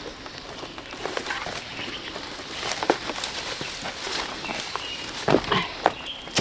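Irregular footsteps and rustling on rough ground.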